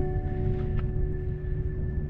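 Soft instrumental background music, a held chord ringing out and slowly fading.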